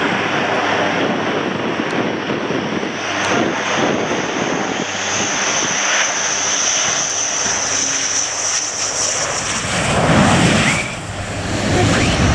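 A USAF F-15 Eagle's twin Pratt & Whitney F100 turbofan engines on final approach to landing: steady jet engine noise with a high whine that swells in the middle as the jet comes close, dipping briefly near the end.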